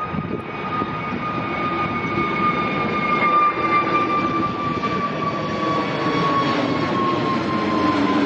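Twin-engine Airbus A320neo-family airliner climbing out at take-off power overhead. Its turbofan engines make a steady rumble with a whine that sinks slowly in pitch as it passes, growing louder over the first few seconds.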